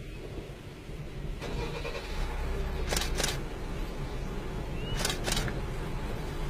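Low steady rumble of an idling engine, growing a little louder about a second and a half in, with two quick double clicks about three and five seconds in.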